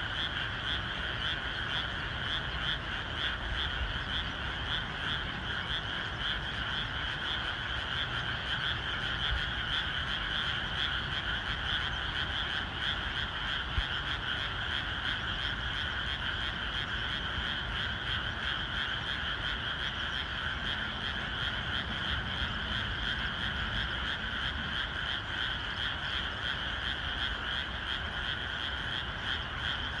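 A dense chorus of many frogs calling without a break, a steady wall of fast-pulsing calls in which no single voice stands out.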